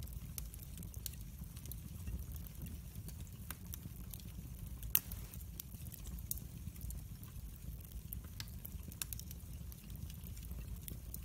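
Split logs burning in a fireplace, crackling with scattered sharp pops, the loudest about five seconds in, over a steady low rumble.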